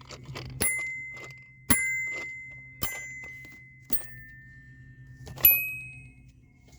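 A small bell or metal object struck five times, about a second apart. Each strike is a sharp tap followed by a clear ding that rings and fades slowly. The last strike is the loudest and a little higher in pitch.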